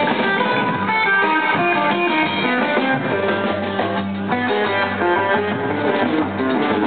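A small live band playing: electric guitar over upright double bass and drum kit.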